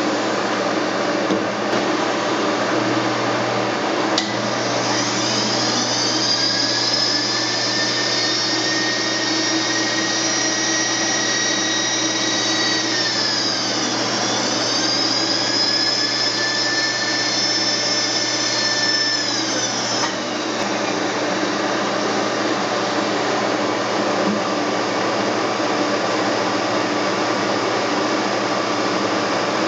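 Milling machine running with a steady mechanical hum. Over it an electric motor whines up in pitch, runs steadily and winds down twice, as the table and spindle are moved to the next measuring point along the rifle barrel.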